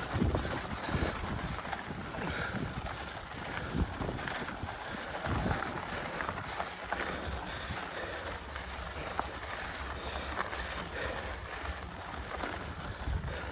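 Wind rumbling on the microphone during a mountain bike ride on a dirt trail, with steady bike and tyre noise.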